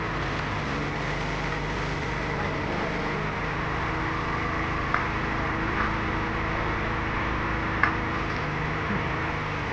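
Motorcycle engine of a motor tricycle cart running steadily, with a few light clicks about halfway through and once more near the end.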